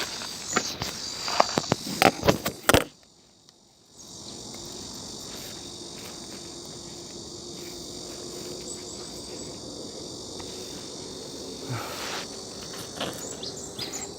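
A steady high-pitched chorus of summer insects. Footsteps thud irregularly over it for the first few seconds. Nearly everything drops out for about a second, then the insect chorus carries on evenly without the steps.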